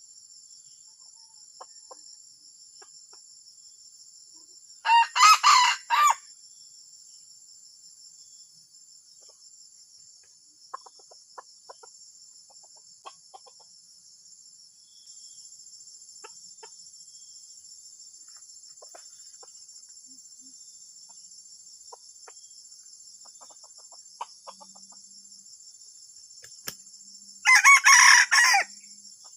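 Junglefowl rooster crowing twice: two short, broken crows about 22 seconds apart. A steady high insect buzz runs underneath.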